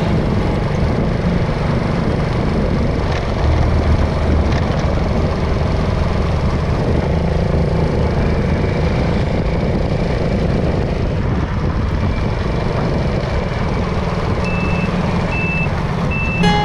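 Road traffic: vehicle engines running with a steady low drone under continuous road noise. A few short, evenly spaced high beeps come near the end.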